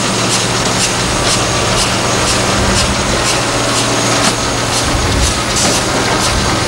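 Liebherr R962 Litronic crawler excavator running, a steady diesel drone with a regular high clicking about twice a second.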